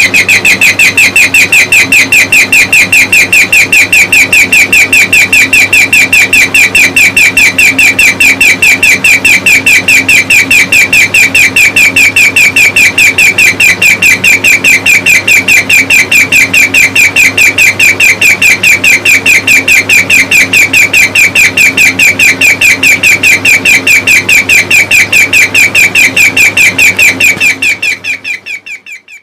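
Electronic bird-chirp doorbell sounding as a wall clock's alarm: a loud, rapid, unbroken run of high bird-like tweets over a steady low hum, fading away near the end.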